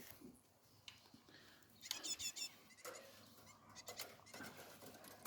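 Great tit chicks calling: a quick run of about five high, thin calls about two seconds in, with fainter scattered calls and small rustles around it.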